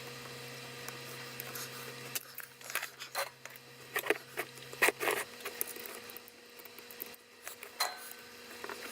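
Small hand tools clicking and scraping at irregular intervals during work on a computer power-supply board. A steady electrical hum underneath drops about two seconds in and cuts out about five seconds in.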